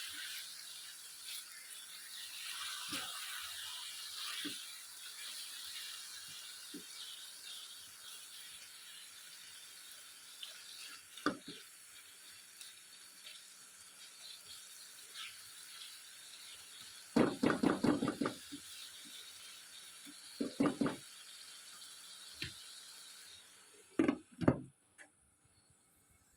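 Potato curry simmering in a pot on low heat with a steady hiss, broken by a few clattering knocks of cookware, loudest in a short cluster past the middle; the hiss stops shortly before the end.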